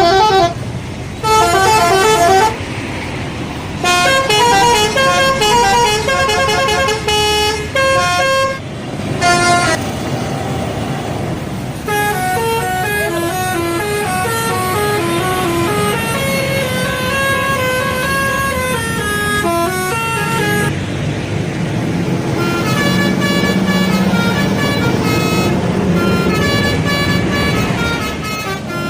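Telolet horns on Indonesian buses: multi-tone air horns playing quick stepped melodies, one tune after another with short breaks. Underneath runs the low noise of a bus engine.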